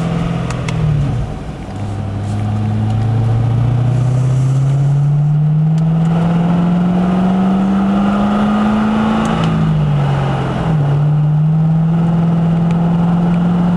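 Twin-turbocharged Chevrolet Corvette V8 heard from inside the cabin. The engine note dips about a second in, climbs slowly and steadily in pitch for about seven seconds, falls back near the ten-second mark and then holds a steady note.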